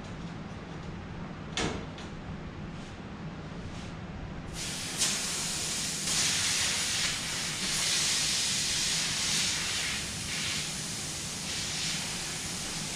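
Refrigerant gas hissing from an air conditioner's service line as gauges are hooked up to check the charge, starting suddenly about a third of the way in and wavering in strength. Before it, a low steady hum and a single click.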